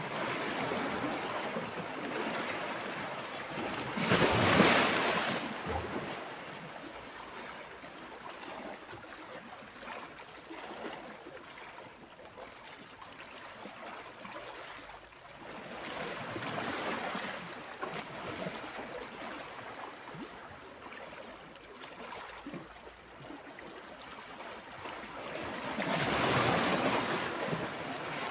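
Small sea waves washing over and around shoreline boulders, with foamy water draining between the rocks. The wash swells three times, the loudest surge about four seconds in, another around the middle and a third near the end, with quieter rippling between.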